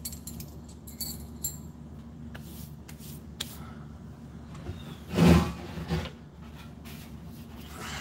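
Light clicks and clinks of things being handled, then a louder thump about five seconds in and a smaller one just after, over a steady low hum.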